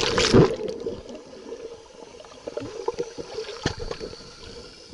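A splash as the waterproof camera goes under the water of a swimming pool. Then, from about a second in, muffled underwater noise with a low steady hum and scattered faint clicks, heard through the submerged microphone.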